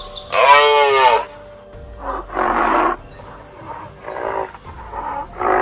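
Hippopotamus calling: one drawn-out pitched call that rises and falls, then three rough, throaty grunts at spaced intervals.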